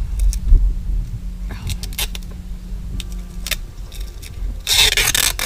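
Clicks, knocks and rustling of a package being strapped onto a motorcycle's rear rack, with straps and buckles handled and a louder burst of rustling about five seconds in.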